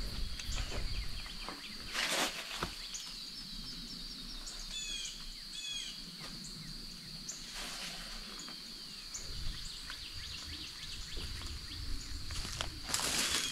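Woodland ambience: a steady high insect drone, with a few short bird chirps in the middle. Footsteps in leaf litter come about two seconds in and start again near the end.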